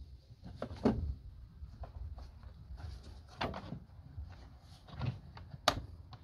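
Plastic air filter box lid being lowered onto the airbox and pressed into place by hand: a few dull plastic knocks, then a sharp click near the end as it seats and a retaining clip snaps shut.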